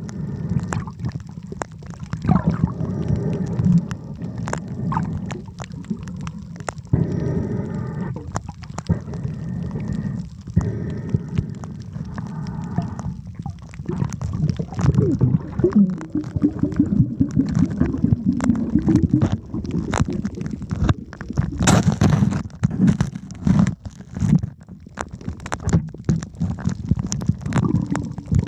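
Muffled underwater sound heard through a submerged camera: a low water rumble with gurgling and bubbling, and many small clicks and crackles, loudest about 22 seconds in.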